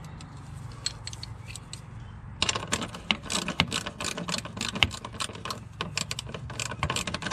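Hand ratchet clicking, with a few scattered clicks at first and then quick, dense clicking from about two seconds in, as the clamp bracket on a diesel fuel filter is tightened.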